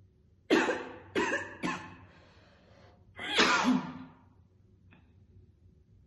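A woman's heavy smoker's cough while smoking a cigarette: three quick coughs in a row about half a second in, then one longer cough a little after three seconds.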